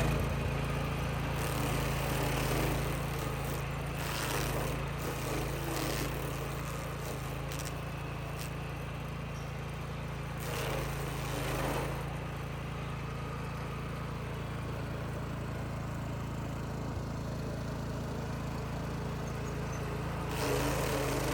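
Small gasoline engine running at a steady speed, with louder stretches of rough noise about four and ten seconds in.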